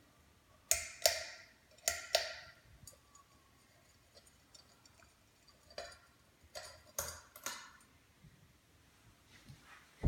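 About eight sharp clicks from a 44-inch Hunter Eclipse ceiling fan, some in quick pairs, each with a short ring after it.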